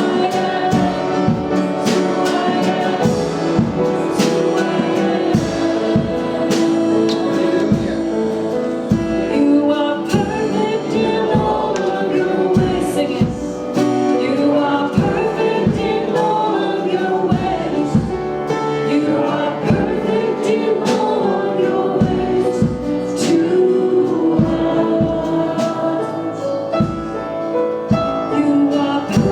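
Worship music: a group singing with a band, over a steady beat.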